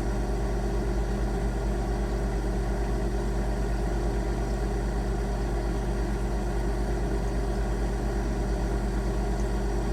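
Refrigerator compressor running with a steady low electrical hum that holds level and pitch throughout.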